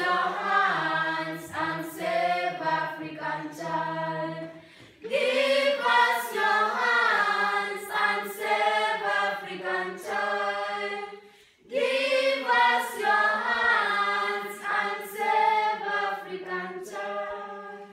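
A choir singing a cappella in three phrases, with brief breaks about five and twelve seconds in, fading out at the very end.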